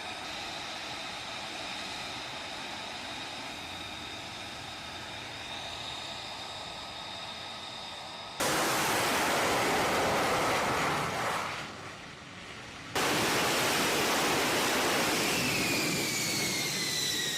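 Jet engine noise in edited segments: a steady rushing hiss with a high turbine whine, then an abrupt cut about eight seconds in to louder rushing jet noise that fades, and a second cut to loud jet noise whose whine falls in pitch near the end.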